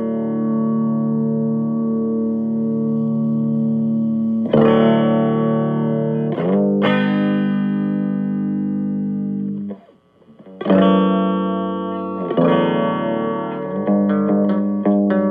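Electric guitar chords played through a DOD FX20C stereo phaser pedal, each chord ringing out with a slow, regular wavering sweep. A chord rings for about four seconds, new chords are struck around five and seven seconds in, and several more follow in the second half after a brief drop-out near ten seconds.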